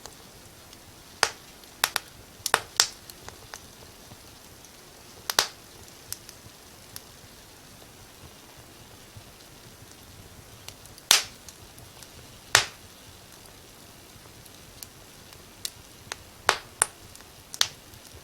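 Wood fire crackling in a fireplace: irregular sharp pops and snaps over a faint steady hiss, with the loudest pops about eleven and twelve and a half seconds in and a quick cluster near the end.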